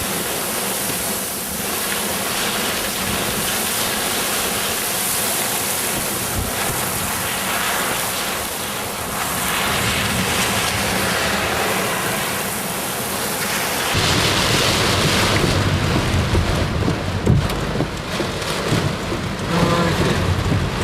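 Torrential rain and hail pounding on a car in a severe storm, a dense steady roar. About two-thirds of the way in it turns deeper and gustier as strong wind buffets the car.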